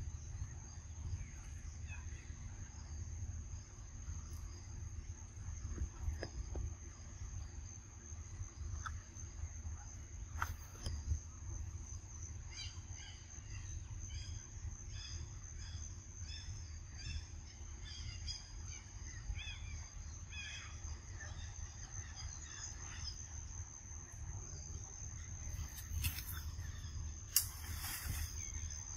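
Outdoor ambience: a steady high-pitched insect drone, with a run of short bird chirps through the middle and a few brief clicks near the end.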